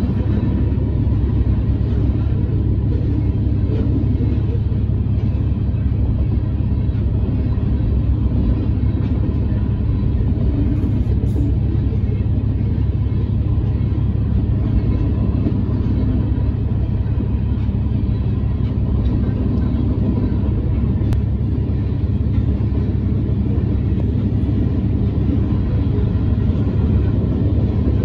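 Freight train rolling through a level crossing, heard from inside a truck cab as a steady low rumble, over the truck's own engine idling.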